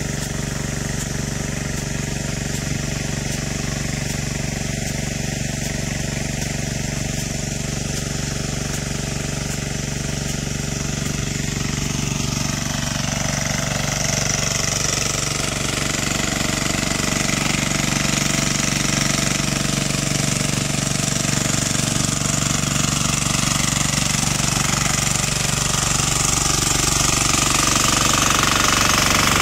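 12 HP air-cooled single-cylinder diesel engine running steadily under load, driving a 2.5-inch irrigation pump that feeds a rain gun. An even, steady clatter that grows gradually louder over the second half.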